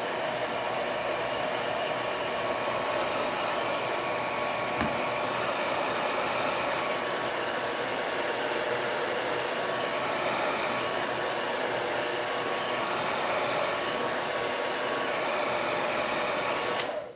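Hair dryer running steadily, blown over a freshly painted MDF plaque to dry the PVA paint. It switches off abruptly just before the end.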